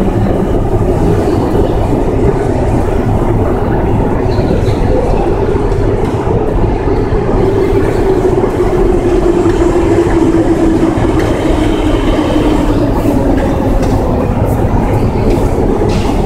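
Moscow Metro escalator running: a steady, loud mechanical rumble and clatter of the moving steps and drive.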